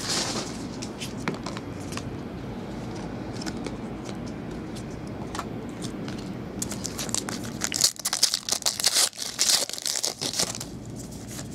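Foil wrapper of a 2011 Upper Deck SP Authentic football card pack being torn open and crinkled by hand: a dense run of crackling begins about seven seconds in and stops about three seconds later. Before that only a low steady hum with a few small ticks.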